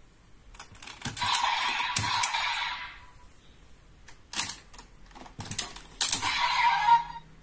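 Desire Driver toy belt with plastic clicks and snaps as its parts are worked. Two loud bursts of electronic sound effect come from its speaker, one from about a second in to three seconds and one from about six to seven seconds.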